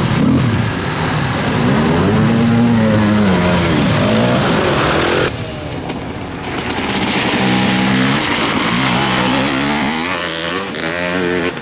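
Enduro dirt bike engines revving up and down again and again as the bikes ride through shallow water, with water splashing. About five seconds in the sound drops abruptly, then another bike's engine builds and revs through a puddle.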